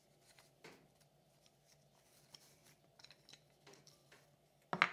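Hands untying a cloth string from a wooden jaw-harp case and pulling the forged iron harp free: faint rustling and small clicks, with one louder knock near the end.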